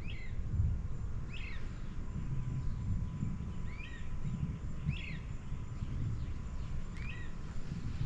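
A bird calling over and over, a short hooked call every second or two, over a steady low rumble.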